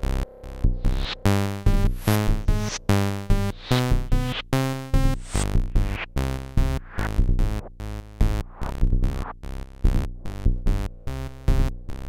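Eurorack modular synthesizer playing a sequenced electronic pattern: a Befaco Even VCO run through a Zlob Triple Cap Chaos filter. Short pitched notes follow each other quickly, with bright filter sweeps, over a low drum pulse.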